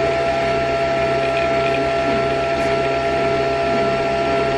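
Small electric motor of a household appliance running steadily with a constant whine and a fast buzzing rattle underneath.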